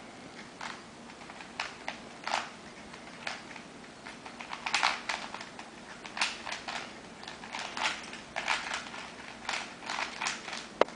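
Rubik's Cube being turned quickly by hand: the plastic layers click and clack irregularly, in quick runs with short pauses between.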